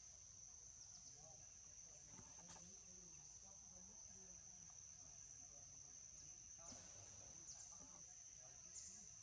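Faint forest ambience dominated by a steady, high-pitched insect drone that runs without a break.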